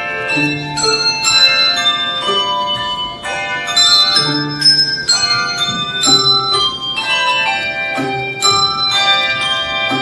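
Handbell choir playing a tune: many tuned handbells rung in turn and together, each note starting sharply and ringing on so that the notes overlap in chords.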